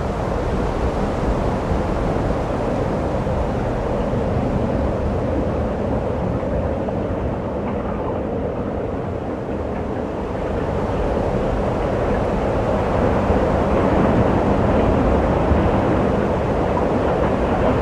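Blizzard wind rushing against the microphone: a steady, gusting noise that grows somewhat louder in the latter part.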